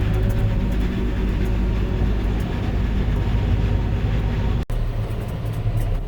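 Heavy farm machinery running steadily under load: a loud, deep engine drone with a low hum. It cuts out for an instant about two-thirds of the way through, then carries on.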